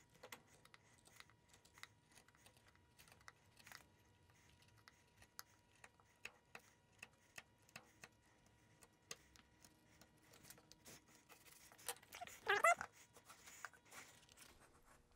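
Faint, irregular light scrapes and ticks of a chisel cutting along a deep marking-gauge knife line in a wooden board. One louder brief sound comes about twelve and a half seconds in.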